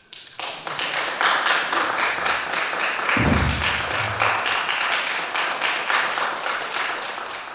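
Audience applauding, starting suddenly right as the piece ends and swelling within the first half second, then holding steady and tapering slightly near the end. A low thud about three seconds in.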